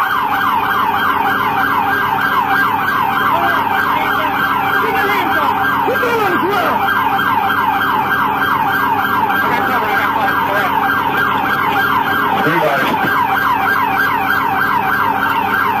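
Police siren in a fast yelp, sweeping up and down about four times a second without a break.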